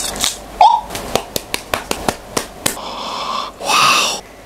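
Quick sharp crackling clicks as the leafy crown of a whole pineapple is twisted and worked by hand, followed near the end by a louder breathy hiss.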